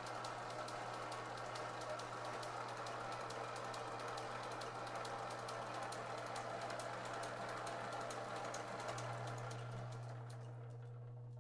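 Brown & Sharpe No. 2 surface grinder running on its flat-belt drive: a steady hum under fast, dense ticking and clatter, with the belts staying on the crowned pulleys. About ten seconds in the clatter dies away, leaving only a steady hum.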